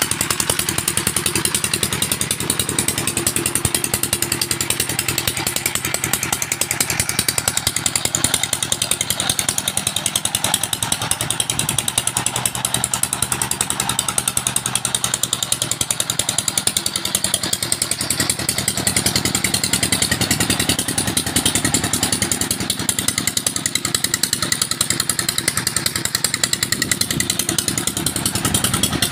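Single-cylinder diesel "Peter" engine running steadily with a fast, even beat, driving a tube-well pump that lifts water.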